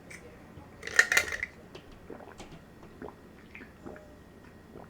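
Close-up eating sounds during a mukbang: soft wet mouth clicks and chewing, with one brief louder burst of handling noise from the food or dishes about a second in.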